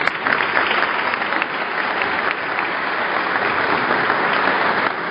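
Applause from a roomful of people, many hands clapping steadily.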